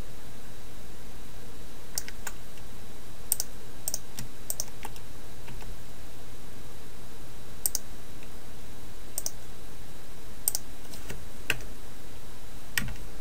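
Scattered, irregular clicks of computer keys and a mouse being worked, about a dozen, over a steady background hiss.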